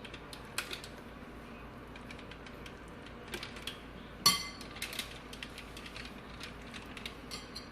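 Spoon scraping and tapping in a bowl of softened herb butter, with light kitchen handling clicks and one sharp ringing clink about four seconds in.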